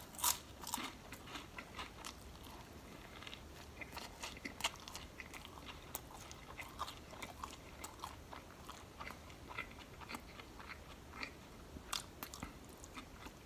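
Close-miked chewing of a mouthful of Italian sub sandwich, irregular soft crunches and wet mouth clicks, the loudest crunch right at the start.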